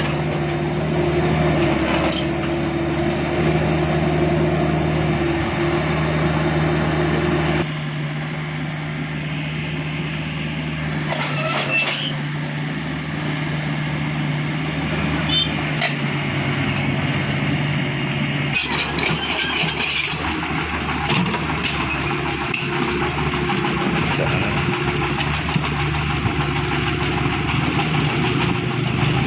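An engine running steadily, its sound changing about seven and a half seconds in, with a few short clatters and knocks.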